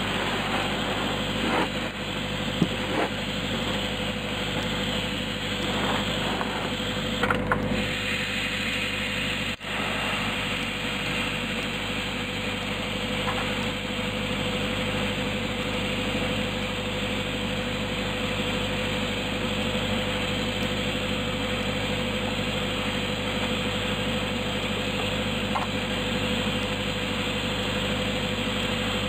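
An engine running steadily at a constant speed, a level drone with a constant hum, with a few light clicks in the first several seconds.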